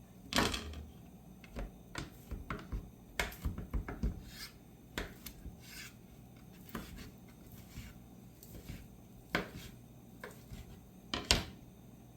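Knife slicing cooked chicken breast on a cutting board: irregular knocks of the blade hitting the board and short scraping strokes, with the sharpest knocks about half a second in and near the end.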